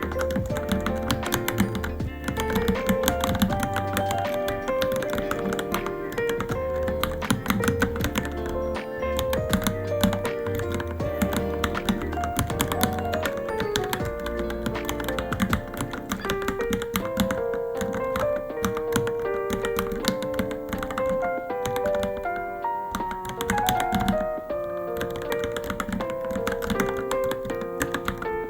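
Continuous rapid typing on a Varmilo Minilo mechanical keyboard, a dense run of keystroke clicks, heard over background music with a melody.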